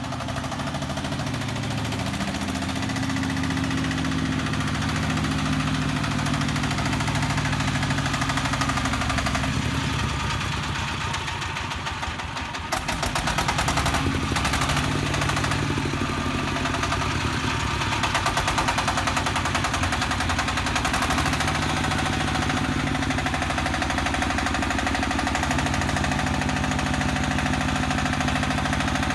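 Diesel engine of a self-loading concrete mixer running steadily with a knocking clatter. Its pitch shifts now and then, and it runs louder from about halfway through.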